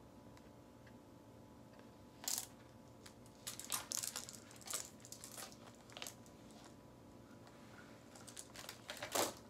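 Scattered light clicks and rustles of small objects and packaging being handled, a few seconds apart, with a louder knock near the end.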